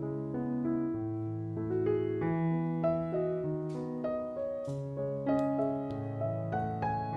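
Background piano music, a melody over bass notes that change every half second or so. A few faint brushing and tapping noises come through about halfway in.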